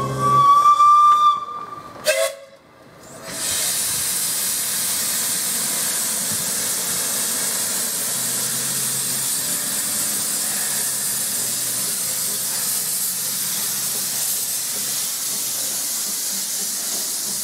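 Narrow-gauge steam locomotive whistle blowing one steady note for about a second. From about three seconds in comes a loud, steady hiss of steam venting from low on the engine, the cylinder drain cocks blowing as the engine starts away.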